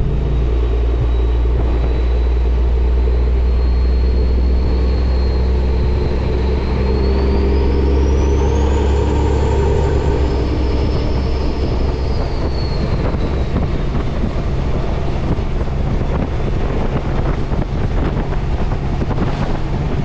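Semi truck's diesel engine running on the road, heard from inside the cab: a steady low drone with road noise. A high whine rises about seven seconds in and fades back down by about thirteen seconds.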